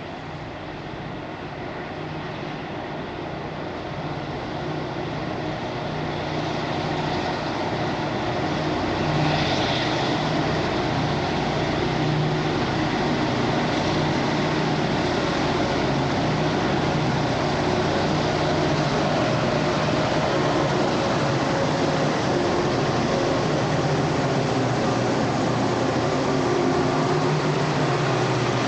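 Diesel-electric locomotives hauling a coal train, their engines growing louder over the first nine seconds or so as they approach, then a steady, heavy engine drone.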